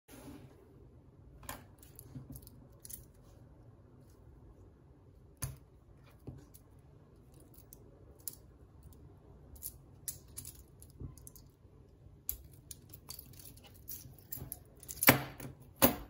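Metal links of a stainless steel Leatherman Tread tool bracelet clicking and clinking as it is unclasped and handled, with scattered light clicks and a louder clatter about a second before the end as it is laid down on the mat.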